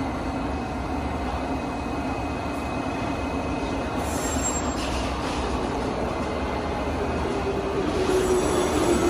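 Metropolitan line S8 Stock train standing at the platform with its doors open, its equipment giving a steady hum. About eight seconds in, a low whine comes in and grows louder.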